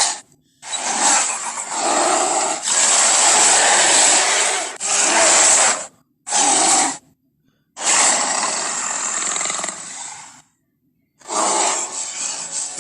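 Film sound effects of a giant albino gorilla roaring: a string of about six harsh, rough roars, each a second to three seconds long, with short silent gaps between them.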